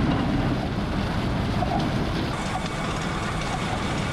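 Steady machinery rumble and hiss of a wood chip loading operation: a conveyor and an excavator running while wood chips are loaded onto a truck.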